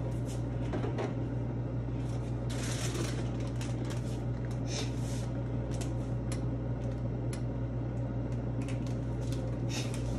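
Countertop air fryer running with a steady low hum, with irregular light clicks and taps scattered throughout.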